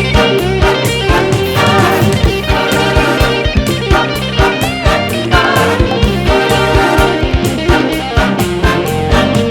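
Background music: a song with guitar, a steady drum beat and singing.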